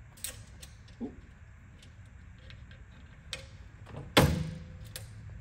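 Metal fastening hardware clicking and knocking against a metal tray and drawer slide as a nut is started by hand on a bolt, a few light clicks, then one louder clank about four seconds in that rings briefly.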